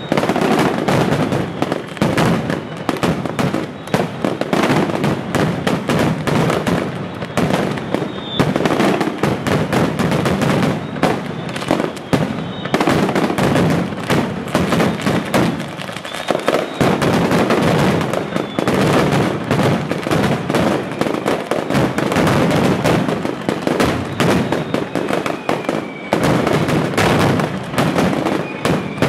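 Mascletà: strings of firecrackers hung on cords going off in a rapid, unbroken barrage of bangs, with a brief lull about sixteen seconds in.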